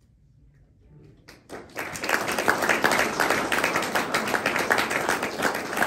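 A short hush, then an audience bursts into applause about a second and a half in, dense and steady clapping.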